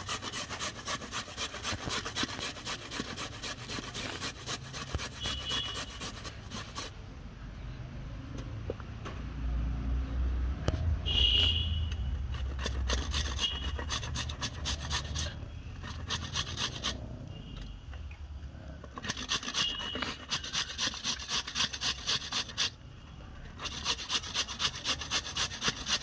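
Carrots being grated on a stainless steel box grater: quick, even rasping strokes. The grating pauses for several seconds in the middle, where a low rumble is loudest, then resumes in steady runs near the end.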